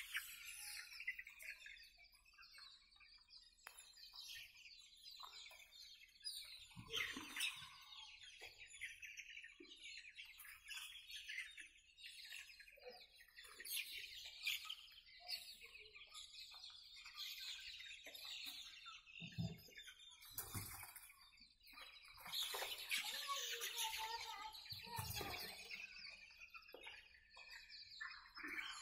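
A flock of young Sonali chickens peeping and chirping, many short calls overlapping at a fairly low level.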